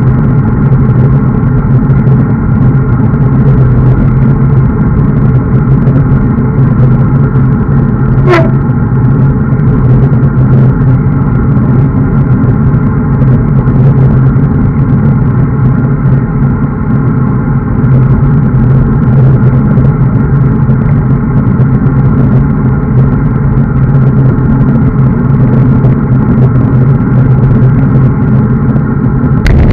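Steady wind roar and road noise on a bike-mounted camera's microphone while riding along in a group at speed. About eight seconds in, a brief squeak drops sharply in pitch.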